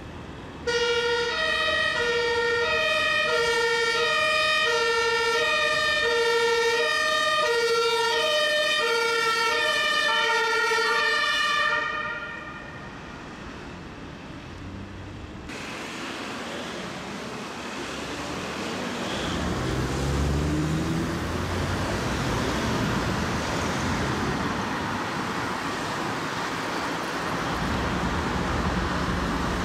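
Ambulance's German two-tone siren, switching between a lower and a higher note about every half second, then stopping abruptly about twelve seconds in. After it, street traffic noise with a vehicle engine revving up.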